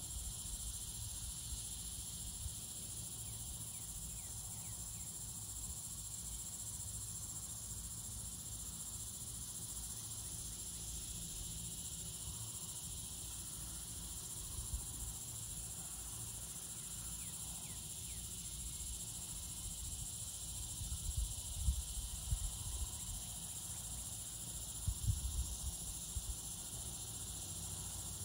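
A steady, high insect chorus buzzing throughout. A few brief low rumbles hit the microphone about two-thirds of the way through and again a little later.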